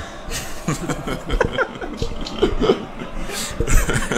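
Men chuckling and laughing in short, broken snatches.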